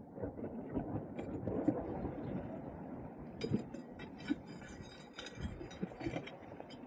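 Wind rumbling and buffeting on the microphone, with scattered short clicks and scuffs, most of them about halfway through.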